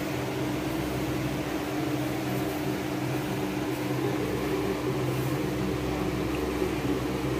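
Steady machine hum, a few low tones held over an even hiss.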